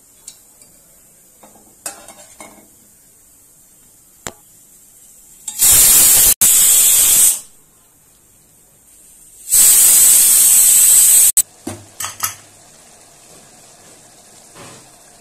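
A wire skimmer clinks and scrapes against a steel pot as boiled cauliflower florets and potato are lifted from the water. Two loud, even hisses of about two seconds each, one about six seconds in and one about ten seconds in, each starting and stopping abruptly.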